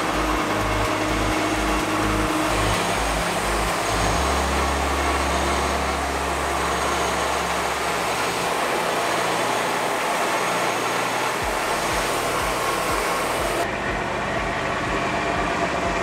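Wood-Mizer LT40 Wide bandsaw mill running, its engine steady as the band blade saws through a Monkey Pod log, with background music carrying a steady bass beat underneath.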